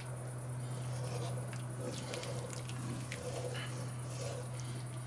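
Wooden spoon stirring thick goulash with white beans in a cast-iron Dutch oven: wet sloshing and squelching with occasional light clicks of the spoon against the pot, over a steady low hum.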